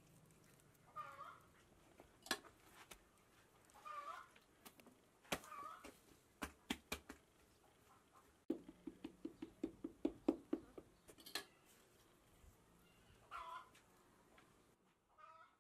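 A small animal calling about five times, each call a short cry that rises and falls. Light taps and knocks come in between, with a quick run of about a dozen soft pats near the middle.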